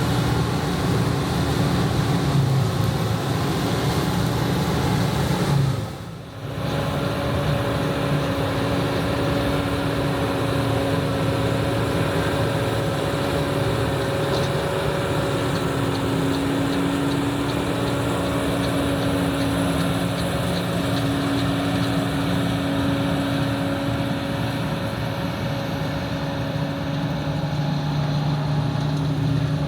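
John Deere 9610 combine running steadily under harvest load: a continuous engine drone with a steady mechanical whine over it. The sound dips briefly about six seconds in.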